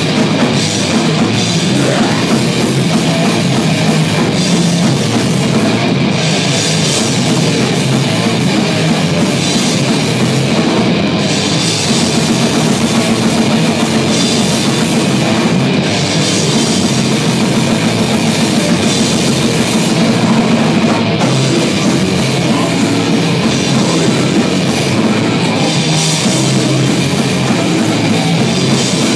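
Live heavy metal band playing loud and without a break: electric guitars over a drum kit.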